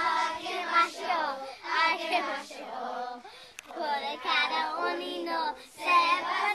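A class of young children singing a song together in Japanese, in short phrases with brief breaths between them.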